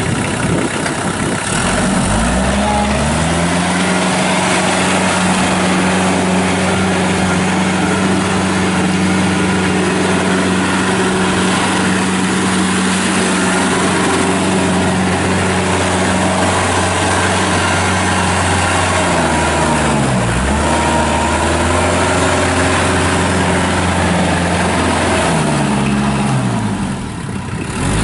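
Kubota L4740 compact tractor's diesel engine running under way; about two seconds in it revs up and holds a steady high speed. Near the middle and again near the end the revs dip briefly and pick back up.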